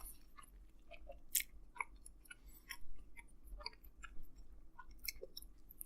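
A person chewing a mouthful of soft, gooey pizza sandwich close to the microphone: faint, irregular little clicks and smacks of the mouth, with a sharper click about a second and a half in.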